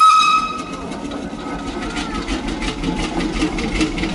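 A brief ringing tone at the very start that dies away within about half a second, then a steady rhythmic mechanical clatter of several beats a second, like a machine running.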